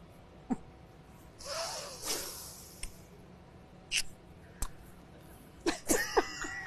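A woman's short breathy laugh, then a blown kiss and a few soft clicks and mouth sounds.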